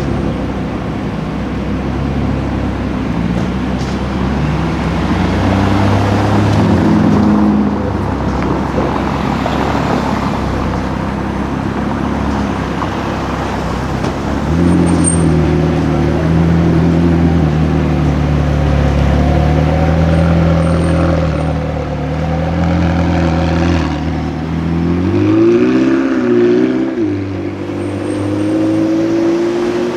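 Sports car engine running at low revs in street traffic, holding a steady note for several seconds. Near the end it gives a quick rev up and down, then pulls away, its note climbing steadily.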